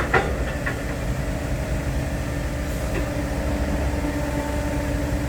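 Heavy diesel engines running steadily, a low rumble with an even hum, with a sharp click just after the start.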